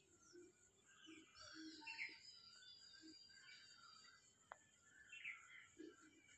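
Faint bird chirps and calls over near silence, including a few thin high whistled notes. A single sharp click about four and a half seconds in.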